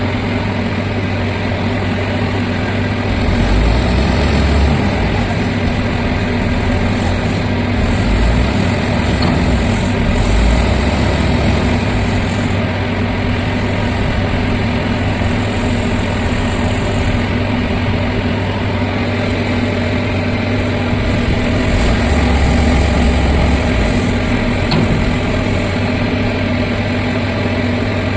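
Heavy diesel engine of construction lifting machinery running steadily, swelling louder briefly three times.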